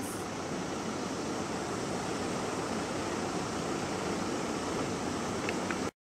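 Steady rushing outdoor background noise, an even hiss with no distinct events, that cuts off abruptly near the end.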